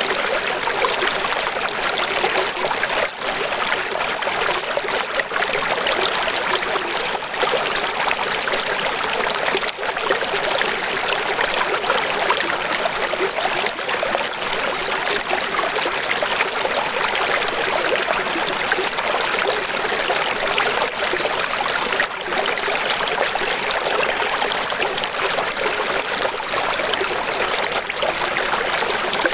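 Running water flowing steadily, an even rushing and trickling with little deep rumble and no pauses.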